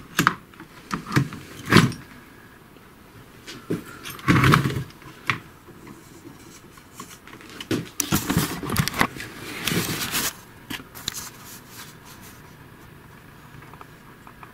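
Handling noise from a disassembled induction cooktop: sharp clicks and knocks, then rustling and scraping, as its main circuit board is lifted out of the plastic housing. The loudest knocks come about two seconds in and about four and a half seconds in, with a longer spell of rustling around eight to ten seconds.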